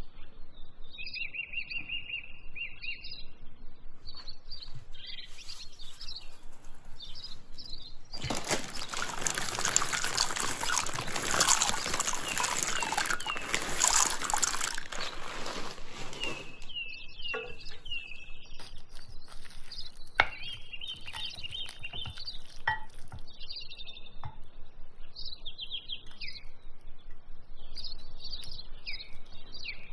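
Birds chirping and singing throughout, with a loud rush of splashing, bubbling water for several seconds in the middle as dry pasta is tipped into a pot of boiling water.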